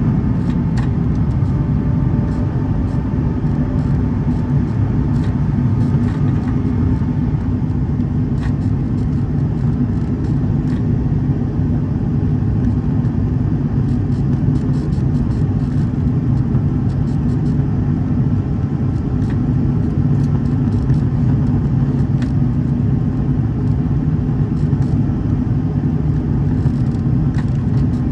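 Steady cabin roar of an Airbus A330 climbing out, its Rolls-Royce Trent 700 engines running at climb power with air rushing past the fuselage, heard from a window seat over the wing. Faint scattered ticks sound over the roar.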